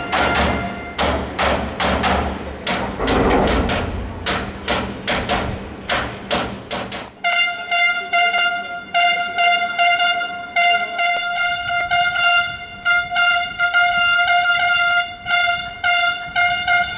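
Rapid clattering knocks for about seven seconds, then a horn-like tone sounding in quick, repeated short blasts.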